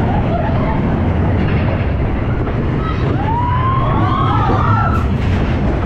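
Big Thunder Mountain Railroad mine-train roller coaster cars running over the track with a loud, steady rumble. In the second half, several high, wavering squeals rise and fall over the top of it.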